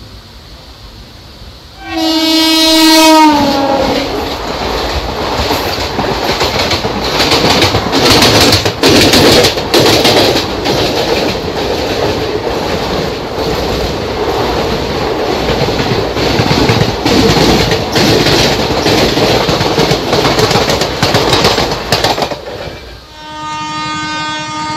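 Electric locomotive horn sounds for about a second, its pitch dropping as the WAP-4 passes, then the train's ICF coaches run close by at speed: loud rumbling with a rapid clickety-clack of wheels over rail joints. Near the end a second steady horn blast begins.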